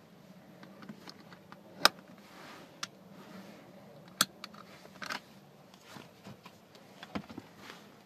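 VW Caddy rear seat-belt buckle being latched and released: a sharp click about two seconds in as the metal latch plate snaps in, and a second click a couple of seconds later as the red release button is pressed. Fainter clicks and rustling of the belt webbing come between and after.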